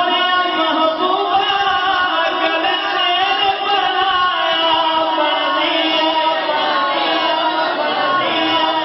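A man singing a devotional naat into a handheld microphone, amplified over a PA, in long held notes that bend and glide in ornaments with hardly a break.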